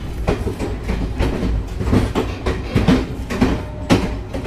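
Indian passenger train carriage in motion, heard from inside: a steady low rumble with the wheels clacking over the rail joints several times a second.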